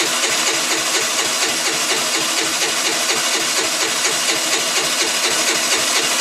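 Engine of a hard-starting 2008 Baotian Tanco 50cc four-stroke scooter, going steadily with an even, fast rhythmic beat.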